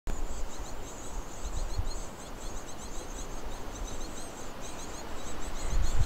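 Nestling birds in a wooden nest box keeping up a rapid, irregular stream of high, thin begging chirps. A low rumble rises near the end.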